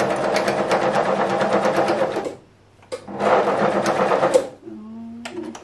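Electric sewing machine stitching through a rice-filled fabric heat pad in two runs of rapid, even stitches, each about two seconds long with a brief stop between them.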